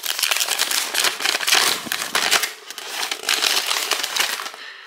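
Folded paper warranty leaflet being unfolded by hand: a rapid crinkling and rustling of paper that fades away near the end.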